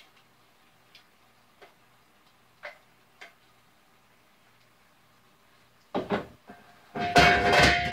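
Faint scattered ticks, then about six seconds in two sharp knocks followed by a loud metallic clatter that rings on with clear tones: kitchen cookware and utensils being handled and set down.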